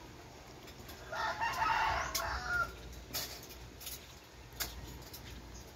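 A rooster crows once, starting about a second in and lasting about a second and a half. A few faint sharp clicks follow.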